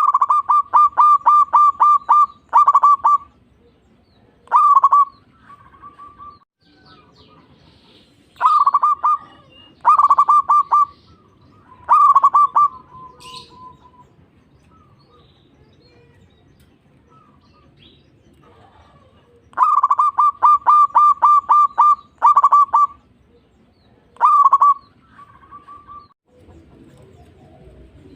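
Zebra dove (perkutut) song: bouts of quick, ringing repeated notes, each run ending in a few longer notes, about seven bouts with pauses between them. The longest runs come at the very start and about two-thirds of the way through.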